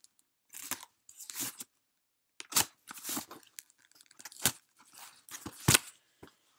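A cardboard shipping box being cut open with a blade: a series of short, irregular scraping, crunching and tearing strokes as tape and cardboard give way, the sharpest one a little before the end.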